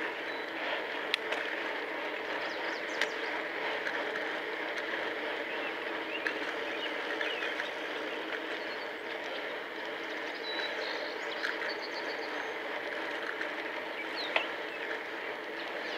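Steady riding noise of a bicycle in motion, tyres on pavement and rushing air, with a few sharp clicks.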